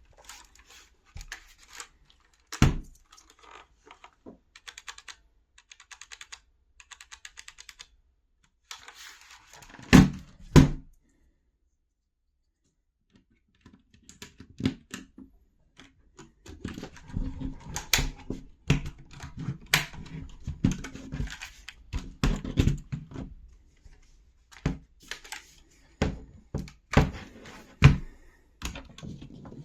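Typing on a HyperX tenkeyless mechanical keyboard with linear red switches: runs of quick key clacks with a few louder, heavier strikes. The typing stops for about two seconds midway, then resumes faster and denser.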